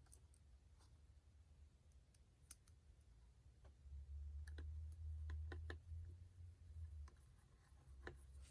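Faint, scattered small clicks and ticks of a screwdriver and laptop parts as a replacement hard drive is screwed into place, with a quick run of several clicks midway, over a low rumble.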